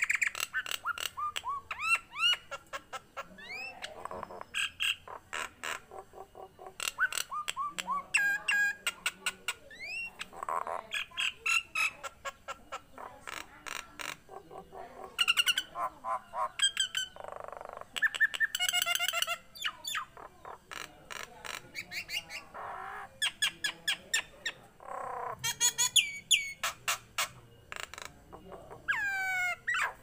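Caged common myna singing a long, varied song: rapid clicking rattles, rising whistles and harsh squawky notes strung together with brief pauses.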